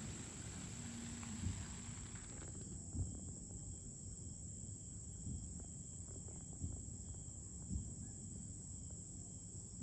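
Quiet outdoor ambience after the fireworks cake has finished: a steady high-pitched whine, with a few faint, dull thumps spread through it.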